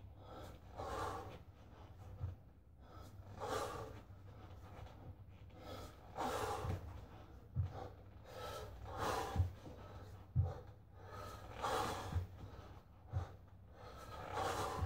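A man breathing hard through kettlebell snatches, a forceful exhalation every two to three seconds, with short low thumps in between.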